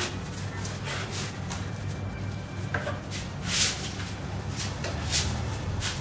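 A small bristle paintbrush sweeping dust off a rough, sanded cement surface: a run of quick, irregular, scratchy strokes.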